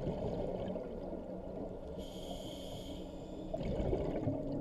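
Scuba diver breathing through a regulator underwater: a hissing inhale about two seconds in, then a rumble of exhaled bubbles. Slow ambient background music with held notes plays throughout.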